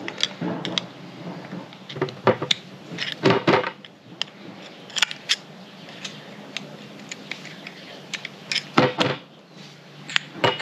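Scattered small metal clicks and taps, with a few louder clusters, as a flathead screwdriver works the emulsion tube out of a small-engine generator carburetor.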